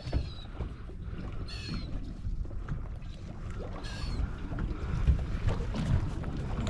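Steady low rumble of water and wind around a small boat drifting on open sea, with three brief high-pitched chirps spread through it.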